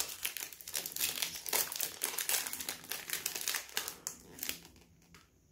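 Gift wrapping paper crinkling and rustling as a small present is unwrapped by hand, dense at first and dying away in the last second.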